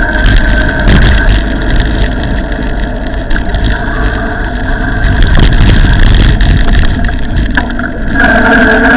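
Wind buffeting a bike-mounted camera at road speed, with the steady whine of the bicycle's electric power-assist motor. The whine fades through the middle and comes back strongly near the end.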